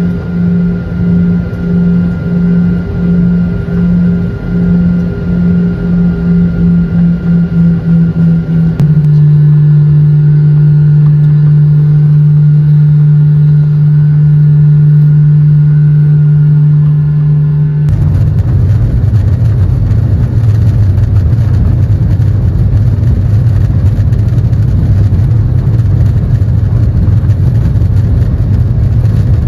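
A jet airliner's engines heard from inside the cabin. A pulsing hum for the first several seconds gives way to a steady, stronger hum about nine seconds in. From about eighteen seconds in there is a deeper rumble with a rushing noise as the plane speeds down the runway on its takeoff roll.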